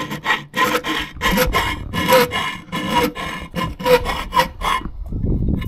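A small hand file worked back and forth against the metal top-box mounting plate and bracket, quick rasping strokes about three a second with a faint metallic ring, touching up the freshly drilled mounting holes. The strokes stop about a second before the end, leaving a low rumble.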